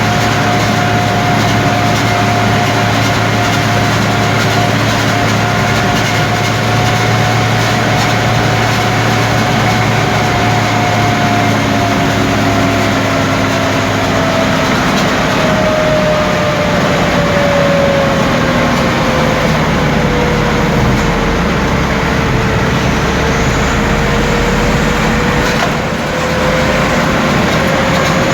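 Light truck engine running hard at speed on the road, a continuous drone with a whining tone that holds steady, then sinks slowly in pitch through the middle and creeps back up a little near the end.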